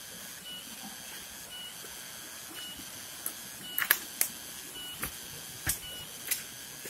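Footsteps and knocks while walking fast over rocks and dry leaf litter on a forest trail: a handful of sharp knocks in the second half, over a steady hiss and a short high chirp repeating about once a second.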